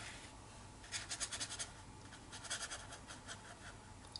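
A watercolour brush scratching across paper, faint, in two quick runs of short strokes: one about a second in and another a little past two seconds.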